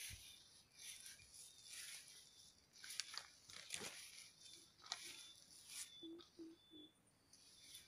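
Faint rustling of pomelo leaves brushing against the phone as it is moved through the foliage, in soft scratchy bursts, with two sharp clicks about three and five seconds in.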